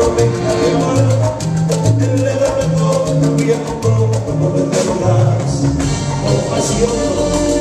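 Live salsa band playing: a walking bass line under hand percussion and horns.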